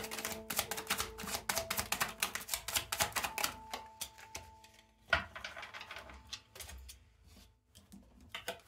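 A deck of oracle cards being shuffled by hand: a fast run of card flicks for about three seconds, then scattered clicks as cards are laid down on the table, one sharp slap about five seconds in.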